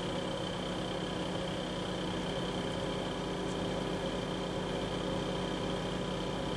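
A steady mechanical hum made of several fixed tones over a light hiss, holding an even level throughout, with a couple of faint ticks a few seconds in.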